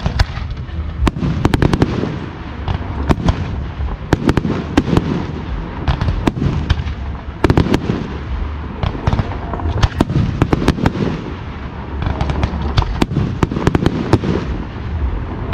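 Aerial fireworks display: many firework shells bursting in quick succession, sharp bangs over a continuous low rumble.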